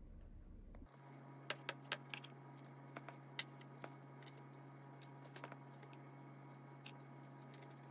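Wooden chopsticks clicking and tapping as sauced boneless fried chicken pieces are set down one by one on a wooden serving board. The clicks are faint, sharp and irregular, over a steady low hum.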